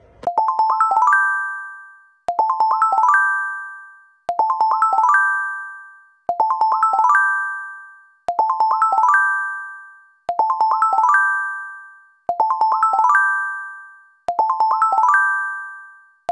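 Looped outro music: a quick rising run of about six high notes that rings out and fades, repeated every two seconds, eight times.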